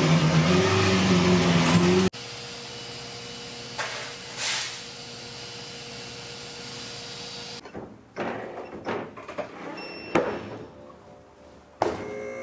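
A vehicle engine running, its pitch wavering, cuts off abruptly about two seconds in. It gives way to quieter workshop sound: a steady hum, a couple of short whooshes, and scattered tool clicks and knocks.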